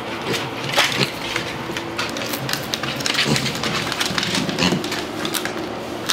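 A potbellied piglet's hooves clicking and scuffing on a hardwood floor as she pushes an apple along it with her snout, with many irregular taps and knocks.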